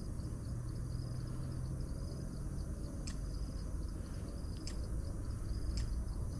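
Steady high-pitched drone of insects in tropical forest, over a low steady hum. A few faint ticks come in the second half.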